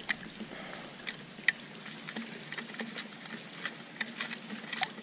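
Screwdriver working the clamp screw on the rim of a stainless-steel pool light fixture: small, irregular metal clicks and scrapes, the sharpest about a second and a half in and again near the end.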